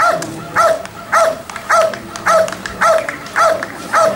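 A Belgian Malinois barks steadily and rhythmically, about two loud barks a second, as it guards the protection helper in front of it.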